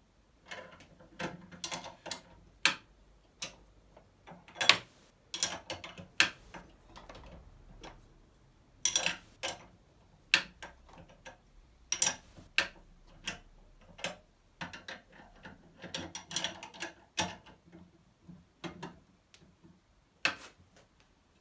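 A ratchet wrench clicking in irregular bursts as it turns the screw of a bearing extractor, drawing a crankshaft bearing out of a moped engine case.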